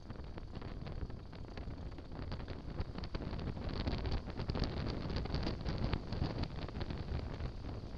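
Airflow buffeting the microphone of an action camera mounted outside a Mooney light aircraft's tail in flight: a constant rushing wind noise with many small crackles.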